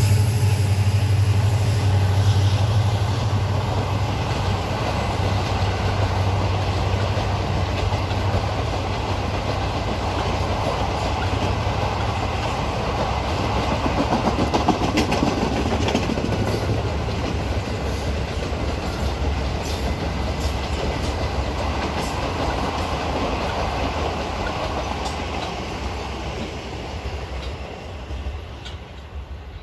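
The passenger coaches of a diesel-hauled express rolling past, their wheels clacking over rail joints. The low hum of the leading EMD WDP4D locomotive fades in the first several seconds. The whole sound dies away near the end as the last coach passes.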